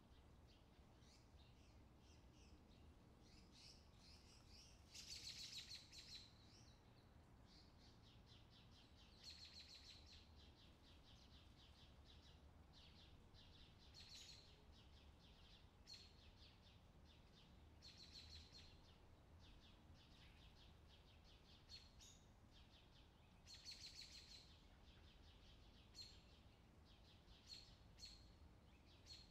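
Faint bird chirping: short bursts of rapid, high chirps that recur every few seconds, over a faint low background rumble.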